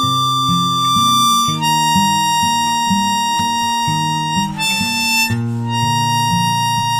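Harmonica holding long notes over a picked acoustic guitar, in the song's instrumental ending. The held note drops in pitch a couple of times.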